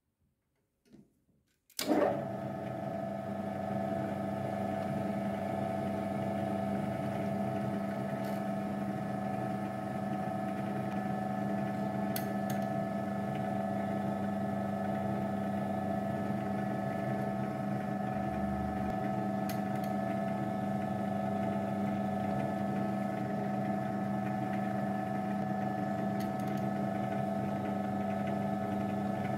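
Milling machine spindle motor switched on about two seconds in, then running steadily with a hum of several fixed tones and an occasional faint click.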